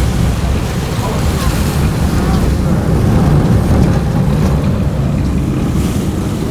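Sport-fishing boat underway: a steady low engine drone with water rushing and wind buffeting the microphone.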